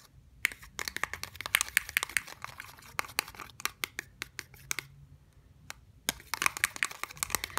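A stirrer working a runny glue-and-water mix in a small clear plastic cup: quick, irregular clicks and sticky ticks of the stirrer against the cup. The clicks pause briefly about five seconds in, then start again.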